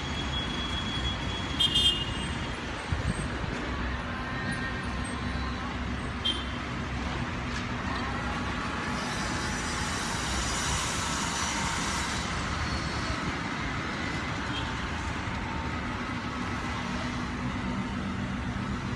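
City street traffic: a steady mix of car, truck and bus engines, with a few short horn toots and one vehicle passing louder around the middle.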